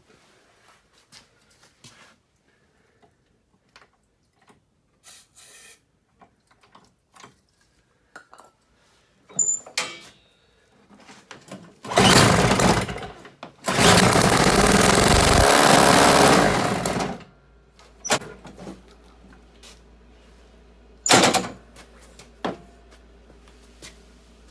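The Toro CCR1000 snowblower's small Tecumseh two-stroke engine is pull-started and fires briefly, about 12 seconds in. It then runs for roughly three and a half seconds and stops. It runs only on fuel squirted into the intake, because the gummed-up carburetor jet is not drawing fuel up to the venturi. Small clicks and knocks of handling come before, and there is one more short burst near the end.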